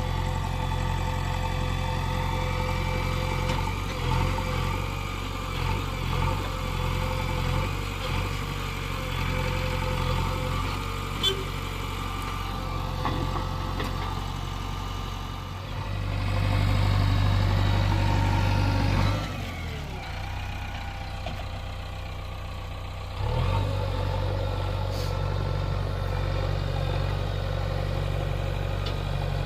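JCB 3DX backhoe loader's diesel engine running steadily as it works. Partway through it runs louder for about three seconds, then drops lower and quieter for a few seconds before picking back up.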